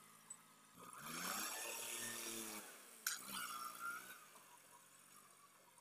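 Massey Ferguson 260 Turbo tractor's diesel engine working under load as its front blade pushes chopped fodder in a silage pit: the revs rise about a second in and fall back, dip once more, then settle quieter. A single sharp click comes about three seconds in.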